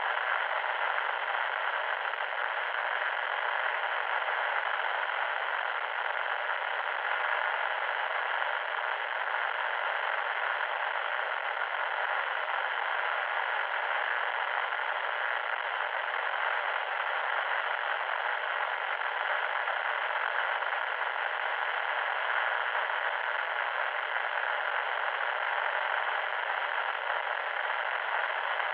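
Loud static: a steady, harsh hiss confined to the middle and upper-middle range, without bass or the highest treble, unchanging throughout.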